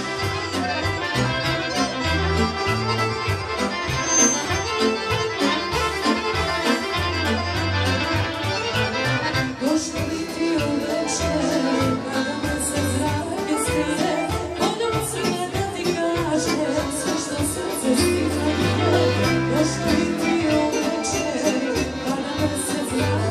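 A live folk band plays a Romanian folk tune: two accordions and a violin lead over keyboard and a drum kit keeping a steady dance beat. A woman's voice comes in through a microphone about halfway through.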